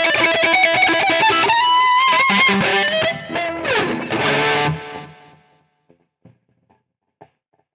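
Jackson Performer PS-2 electric guitar through Guitar Rig 5 high-gain distortion, playing fast picked notes, then a held note with vibrato, then a note sliding down in pitch. The playing stops about five seconds in and rings out, followed by a few faint clicks.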